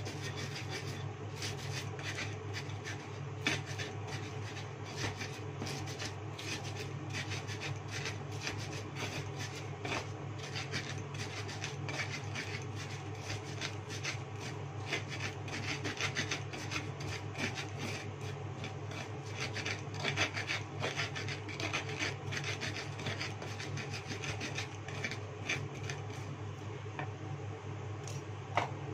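Pestle grinding bird's-eye chillies, salt, sugar and shrimp paste in a small cobek mortar: repeated gritty rubbing and scraping strokes that thin out near the end. A steady low hum runs underneath.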